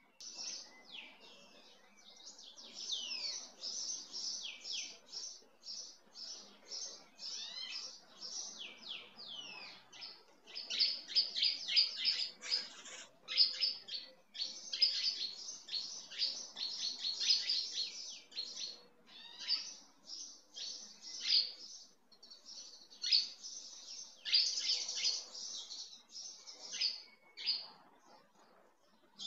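Small birds chirping busily: quick, high chirps and short falling whistles in rapid runs with brief pauses.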